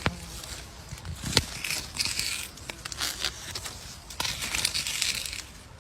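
Slime being squeezed and handled, making a crinkly, crackling sound with scattered sharp clicks and pops.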